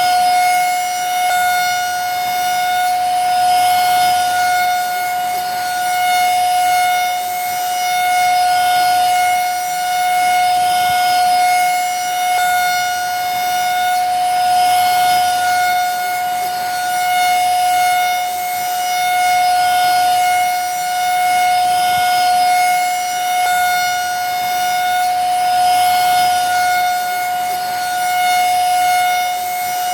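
Vacuum cleaner running steadily: a constant high motor whine over rushing air noise, swelling slightly about every two seconds.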